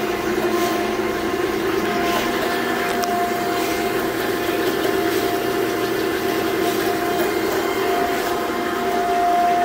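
Okamoto 12 x 24 automatic surface grinder running under power: a steady mechanical drone with a thin whistle that fades in and out.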